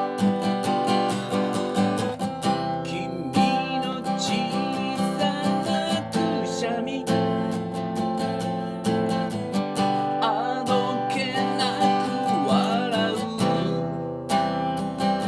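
Music: strummed acoustic guitar chords in a steady rhythm, with a wavering melody line over them for a few seconds in the second half.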